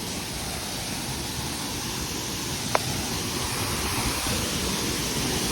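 Waterfall rushing in a steady, even roar that grows slightly louder, with one brief click about halfway through.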